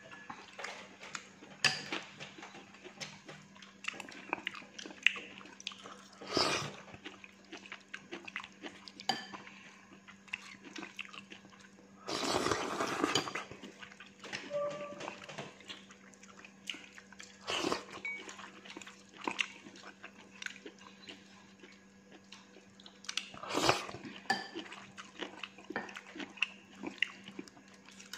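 Wooden chopsticks clicking and scraping against a ceramic bowl of noodles as someone eats, with many small sharp clicks. A few louder, noisier bursts stand out, the longest lasting about a second midway. A low steady hum runs underneath.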